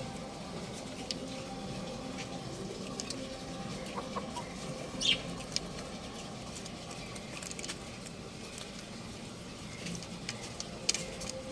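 Young rooster giving a few faint, scattered clucks and chirps over a steady low background hum, with a brief high chirp about five seconds in and small clicks here and there.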